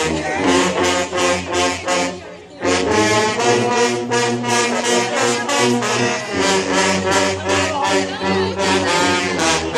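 High school drumline playing with brass horns: a steady beat of drum hits under loud sustained brass chords. It breaks off briefly a little over two seconds in, then comes back in full.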